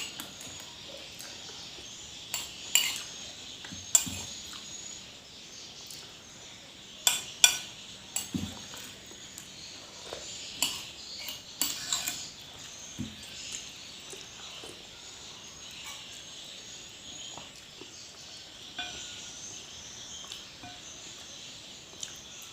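Spoon and fork clinking and scraping against a plate while eating: a scatter of sharp clinks, most of them in the first half, then only a few.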